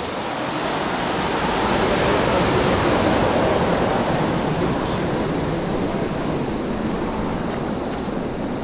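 Twin-engine jet airliner on final approach passing low overhead: a broad engine roar that swells to its loudest about three seconds in, then slowly fades as the plane descends away toward the runway.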